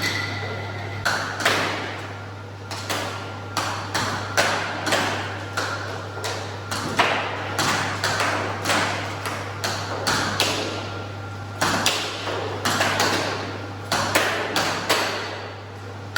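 Sharp clacks of a two-player table game in play, irregular at about two hits a second, each ringing briefly in a hard-walled room, over a steady low hum.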